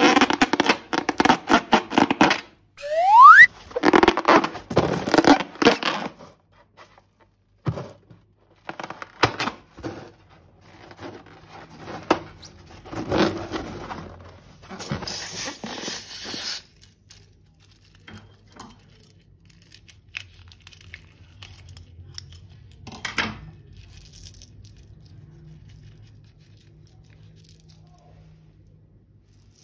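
Rubber balloons and slime being handled: loud squeaky, tearing handling for the first six seconds with a short rising squeak about three seconds in, then scattered crackles and snaps, a rustling stretch around the middle, and faint crackling to the end.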